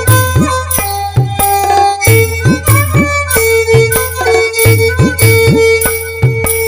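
Instrumental passage of a Santali folk song: a steady drum rhythm whose low strokes bend upward in pitch, under a held melody note.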